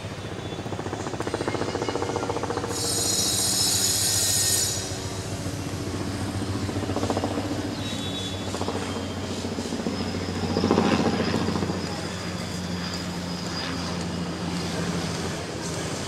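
City traffic noise with a steady low engine hum. A high-pitched squeal comes in about three seconds in and lasts some two seconds, and the noise swells briefly around the middle.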